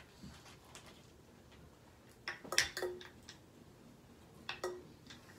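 Light knocks and clinks of bottles and glassware handled on a table. They come in two short clusters about two seconds apart, and each ends in a brief ring.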